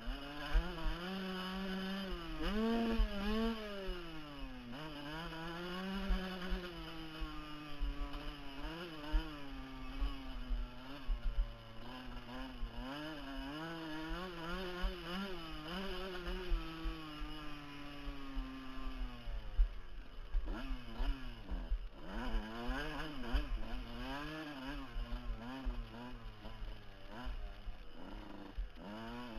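Off-road motorcycle engine revving up and down as the throttle is worked, its note falling away about twenty seconds in and then picking up again. Irregular low buffeting on the helmet-mounted microphone runs under it.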